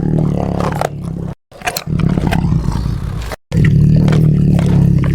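Loud, steady low rumble of the moving train with wind buffeting the microphone. It is broken twice by abrupt silent cuts, about a second and a half and three and a half seconds in.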